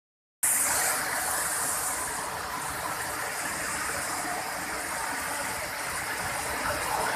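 Waterfall: a steady, even rush of falling water with no break or change.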